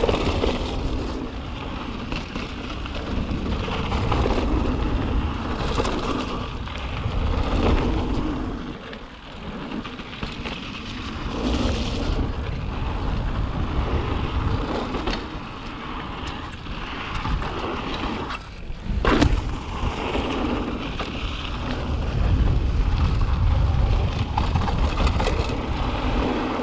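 Mountain bike riding fast down a wet, muddy dirt trail: tyres rolling through mud and slush and the bike rattling over bumps, with wind rushing over the microphone. One sharp knock about three-quarters of the way through.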